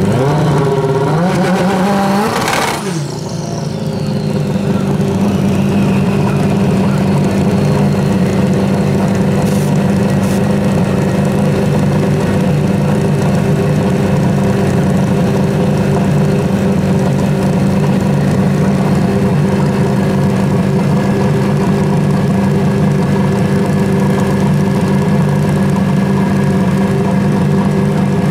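Pro Street drag-racing motorcycle engines idling steadily at the starting line. One engine revs up and down in the first few seconds.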